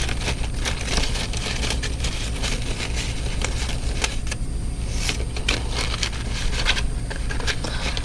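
Thin plastic airbrush stencil sheets rustling and clicking against each other as they are sorted by hand, over a steady low hum.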